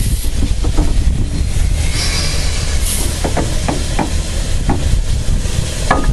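A steam train running, heard at the coupling between the pannier tank locomotive's bunker end and the first carriage. It gives a steady rumble with wind buffeting, a hiss of steam escaping beneath the rear buffer beam, and a run of sharp clanks in the second half. A brief squeal comes just before the end.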